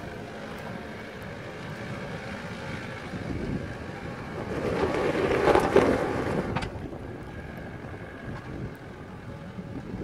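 Mitsubishi Pajero's engine working under load as the SUV climbs a steep, rocky dirt slope. The engine swells louder for about two seconds around the middle, then drops off suddenly.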